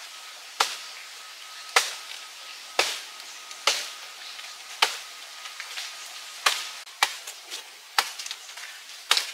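Chopping with a hand blade: sharp strokes about once a second, some followed by a lighter knock or two.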